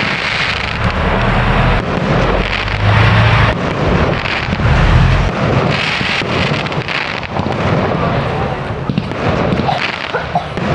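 Fireworks display: shells bursting one after another, with crackling over a continuous rumbling boom.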